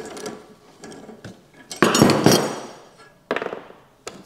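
Metal hand tools and rusted steel parts clinking and clattering on the workbench as they are handled, with one loud, ringing clatter about two seconds in and a few lighter knocks after it.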